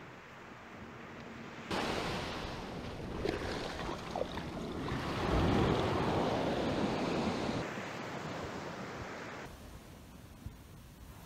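Surf rushing in and swirling around the legs, starting suddenly about two seconds in, loudest midway, then dying down near the end.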